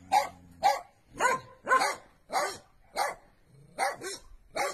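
A dog barking repeatedly, about two short barks a second, some of them close together, with no pause long enough to stop the run.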